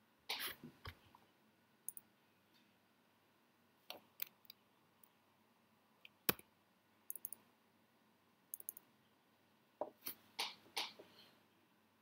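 Scattered clicks of a computer mouse and keyboard, about a dozen irregular sharp clicks with two quick runs of light ticks; the loudest click comes about halfway through, and a few louder ones come near the end.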